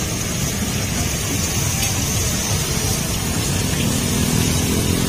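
Batter-coated apple slices deep-frying in a wok of hot oil, a steady sizzling hiss, under a steady low rumble of street traffic.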